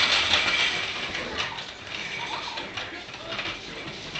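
Puppies scrambling and tussling on a tile floor, their claws clicking and scrabbling on the hard surface. The sound is busiest in about the first second, then lighter and more scattered.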